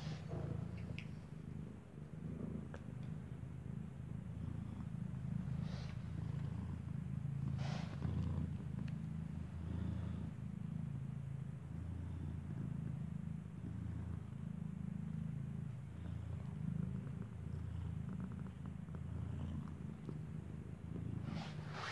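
Mother cat purring steadily and close, a continuous low pulsing rumble as she lies curled around her nursing newborn kitten. A few soft brushes or rustles come through, about six and eight seconds in and near the end.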